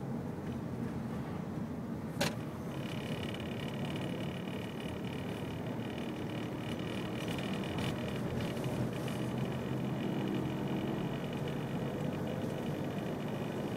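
Interior noise of a car driving in city traffic: steady engine hum and road rumble. A sharp click comes about two seconds in, and a thin high whine joins shortly after and runs most of the way.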